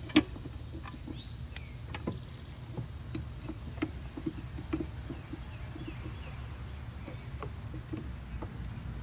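Scattered light clicks and knocks of metal parts being handled as a new lawnmower blade is fitted onto the mower, the sharpest just as it begins, over a steady low background rumble. A few high chirps come in between one and two seconds in.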